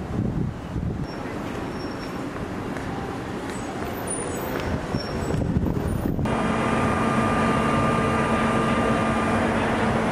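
Street traffic noise. About six seconds in it changes abruptly to a steady vehicle hum with a held whining tone as a streetcar passes.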